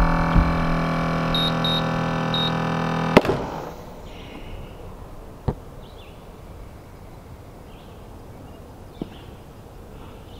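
Compressor of a battery-powered tennis-ball launcher humming steadily, with three short high beeps, then a sharp pop about three seconds in as it launches the ball. The hum stops with the pop, leaving faint outdoor ambience with a couple of light clicks.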